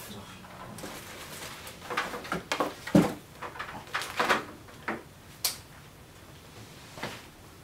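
Unpacking handling noises: a laptop and its packaging set down and moved about on a desk, a run of knocks and rustles of plastic wrapping and cardboard, the loudest knock about three seconds in, then a couple of light clicks near the end.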